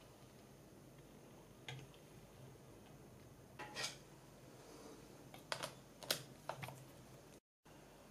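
Small clicks and taps of plastic and metal 3D-printer parts being handled and fitted by hand: a short cluster about halfway through and several sharper clicks later, over a faint low hum.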